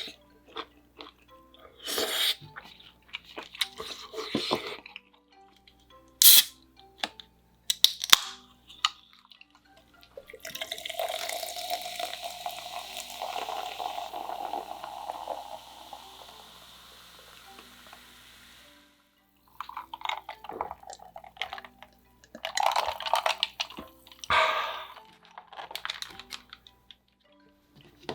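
Close-miked eating and food-handling sounds: sharp clicks and short crunchy bursts, with a steady rushing noise for about eight seconds in the middle. Soft background music plays underneath.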